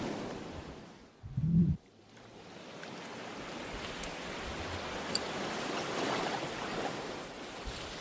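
Sea surf washing in: a surging hiss that dies away, then swells slowly over several seconds and eases off again. A short low rumble comes about a second and a half in.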